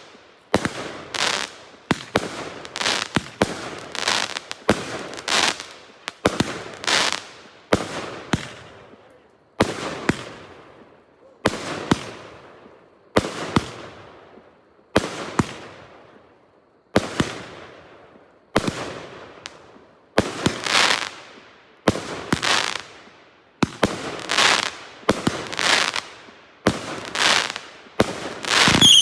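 A 45-shot consumer firework cake firing shot after shot, about one a second with uneven spacing. Each shot is a sharp bang with a tail that fades out.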